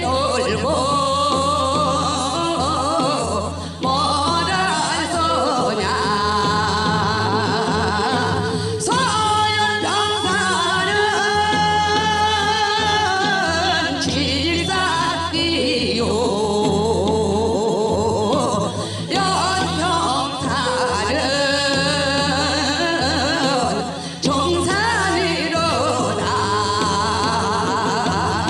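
Korean folk singing: a voice holds long notes with heavy vibrato, bending in pitch, over a steady low drone.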